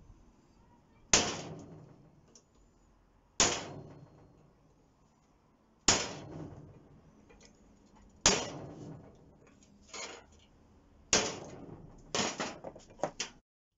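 Ball-peen hammer striking a centre punch on a steel plate to mark hole centres: five sharp metallic blows about two to three seconds apart, each ringing briefly. A lighter knock comes between the fourth and fifth blows, and a few quick lighter clinks follow near the end.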